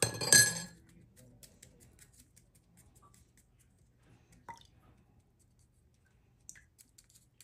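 A metal spoon clinks against a drinking glass of water a couple of times right at the start, ringing briefly. After that there are only faint light ticks and one small tap about four and a half seconds in.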